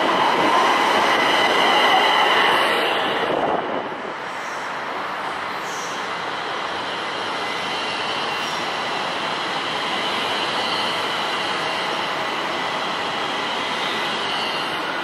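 A light rail train rolls past close by on steel rails, with steady high-pitched wheel squeal over the rumble. It is loudest for the first three or four seconds as the cars go by, then drops to a steadier, lower rolling sound as the train moves off down the track.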